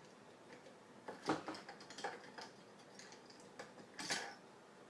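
A few faint, irregular metallic clicks and clinks of hand tools and small engine parts being handled during the teardown of a Honda Urban Express scooter engine, the clearest about a second in and again near four seconds.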